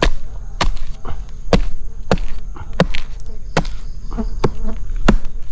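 A blade chopping into a dead coconut trunk to open up a stingless bee nest inside: about ten sharp chops, roughly one every half second, with insects buzzing faintly behind.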